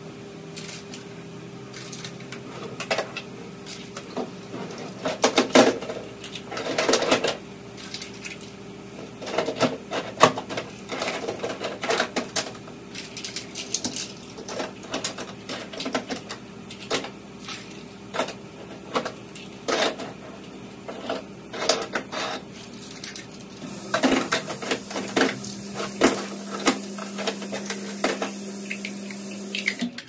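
Hard plastic toys (toy cars and building blocks) clattering and clicking as they are picked up, knocked together and dropped into a basket and a drawer, in quick irregular clatters, with a steady low hum underneath.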